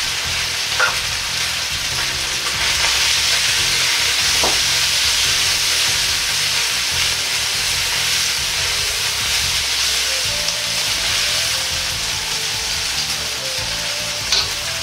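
Beef, garlic, ginger and julienned carrot sizzling steadily in a hot oiled Chinese wok as they are stir-fried, with a few sharp clicks, the loudest near the end.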